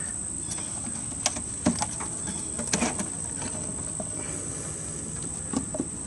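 Wooden beehive frames knocking and clicking against each other and the box as they are handled, with several sharp knocks in the first three seconds and a couple more near the end. Behind them is a steady, high-pitched drone of insects.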